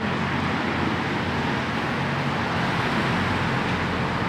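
Steady road traffic noise, an even hiss of passing cars with no distinct events.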